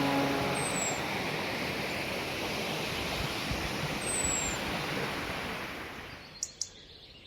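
Steady rush of a waterfall's falling water, fading out over the last couple of seconds, with a few short, high bird chirps. Two sharp clicks near the end.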